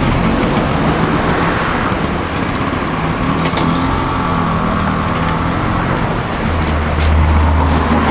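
Street traffic: car engines running and tyres on the road as vehicles pass, one louder near the end.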